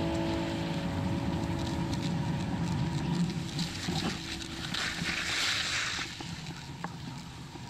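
Wind rushing over the microphone and the hiss and scrape of edges sliding over packed snow during a ride down a groomed slope. The sound eases off somewhat about six seconds in.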